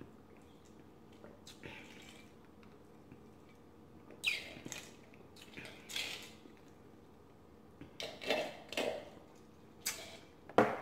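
Soda slurped through a plastic straw from a nearly empty glass: several short, noisy sucks as the straw draws at the bottom of the glass. Near the end, a sharp knock as the glass is set down.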